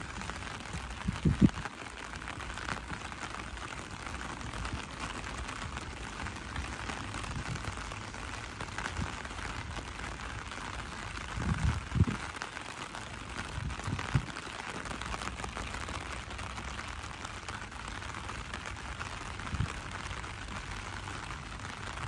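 Steady rain falling on wet pavement, an even hiss throughout, with a few short low thumps: about a second in, a louder pair about halfway through, and another near the end.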